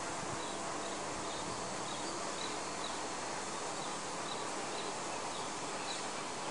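Steady outdoor background hiss with a small bird chirping again and again, short high chirps about every half second.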